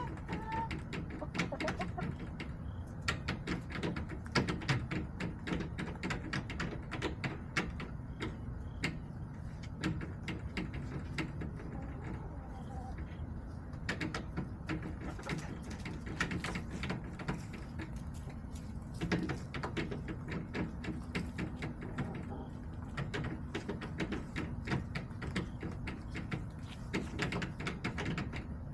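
Chickens pecking at a hard surface: many quick, irregular taps that come in runs, with a short cluck right at the start.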